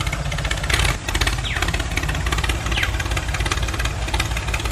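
Engine sound of a mini tractor driving through sand: a steady, fast-pulsing engine rattle with a short dip about a second in.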